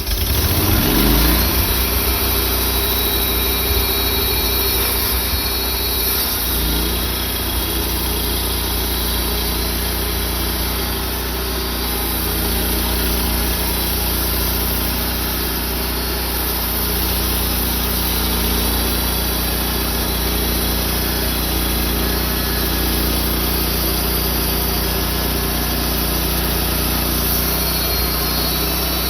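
Sawmill engine revving up over the first second or so, then running steadily at speed as the blade saws through a burled cherry log, with a constant hiss of cutting over the engine note.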